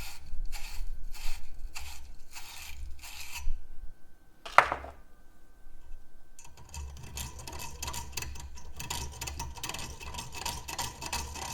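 Scraping as the inside of a copper pipe fitting is scrubbed clean with an abrasive before soldering, at about two strokes a second. A sharp click comes about four and a half seconds in, and faster, continuous scrubbing starts about two seconds later.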